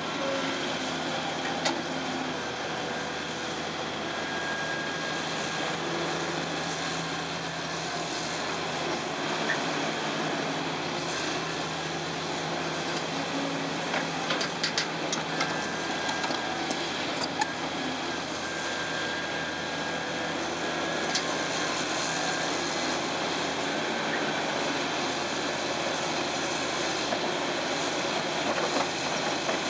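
Diesel engines of a CAT 325C crawler excavator working through a dig, swing and dump cycle, with a CAT 730C articulated dump truck running beside it: a steady engine and hydraulic drone. A few short sharp knocks come around the middle and again near the end as the bucket swings over and unloads into the truck bed.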